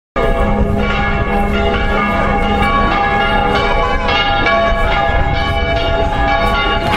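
Church bells pealing: many bells struck over and over, their ringing tones overlapping, starting abruptly just after the start.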